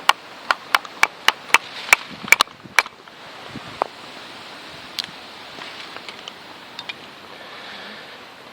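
Firewood being split with a KA-BAR BK2 knife: a quick run of about ten sharp knocks of the blade on wood, about three a second, then a few scattered knocks.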